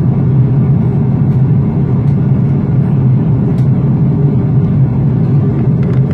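Steady, loud rumble of a jet airliner's cabin in flight: engine and airflow noise as heard inside the cabin by a window seat.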